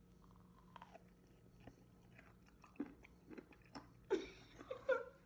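A person chewing a peanut butter and pickle sandwich close to the microphone: small, irregular mouth and bite sounds, with a few louder bites from about four seconds in.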